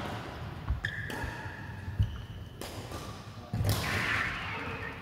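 Mixed doubles racket rally: a few sharp hits, roughly a second or more apart, with short high squeaking tones in between.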